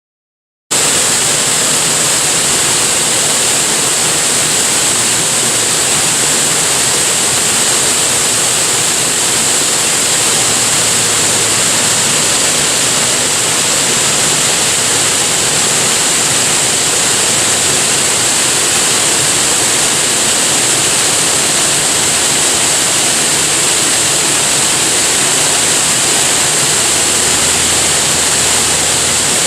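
Waterfall pouring: a steady, loud rushing hiss that cuts in abruptly about a second in.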